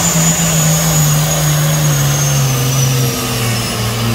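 Truck engine running hard while dragging a pulling sled, its revs sinking steadily through the pull, with a faint high whine falling in pitch along with it.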